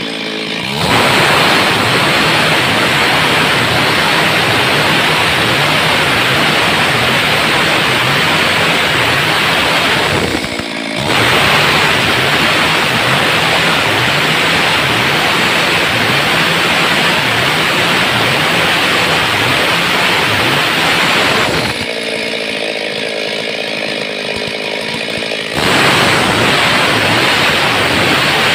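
Stihl MS382 two-stroke chainsaw at full throttle, ripping lengthwise down a timber beam with the chain cutting steadily. It drops off throttle for a moment about ten seconds in. Near the end it eases off for a few seconds, where its engine note comes through, then cuts again.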